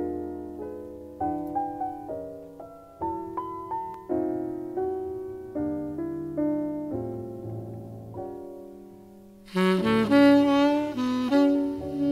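Jazz ballad played from a vinyl record. It opens with piano chords, each struck and left to die away. About three-quarters of the way through, a tenor saxophone comes in with the melody over the piano, its tone breathy.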